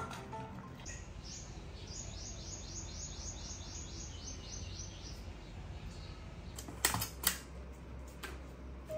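A bird calling a rapid run of short, falling chirps, about four a second, for a few seconds over a faint low hum. Later, two sharp clicks or knocks close together are the loudest sounds.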